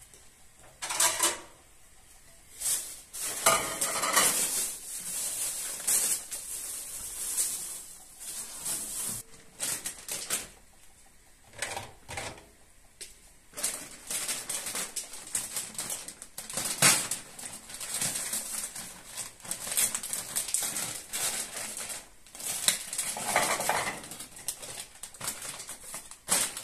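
Dishes and metal utensils clattering and clinking irregularly as they are handled, with a few louder clusters of clatter.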